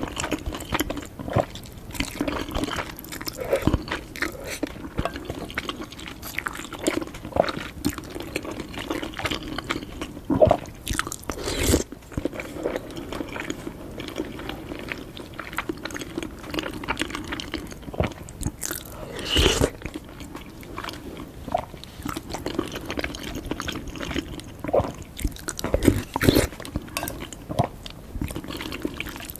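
Close-miked eating: wet chewing and biting of spicy fire noodles and a soft-boiled egg, with a steady run of small mouth clicks and a few louder bites or slurps.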